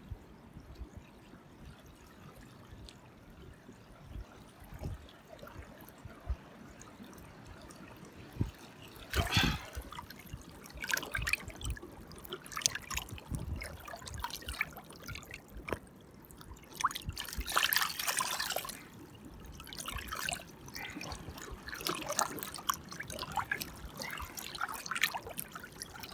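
Small waves washing up the shore, the water trickling and fizzing in irregular washes every few seconds. The first several seconds are quieter.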